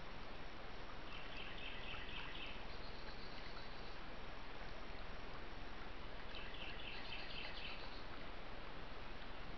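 A small bird singing two phrases about five seconds apart, each a quick run of repeated high notes lasting about a second and a half, over a steady background hiss.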